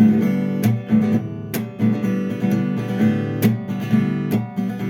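Acoustic guitar strummed in a repeating down-up-down pattern, chords ringing between sharp strokes. It demonstrates the strumming rhythm for a song intro.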